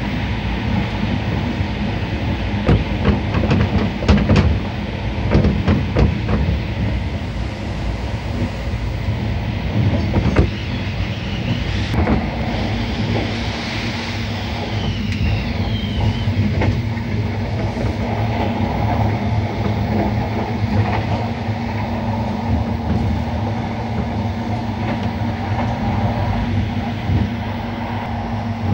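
Finnish Intercity passenger train running along the track, heard from inside the train: a steady rumble with sharp wheel-on-rail clicks and knocks, busiest in the first half as it comes out of a tunnel. About halfway through there is a brief high whine that falls in pitch.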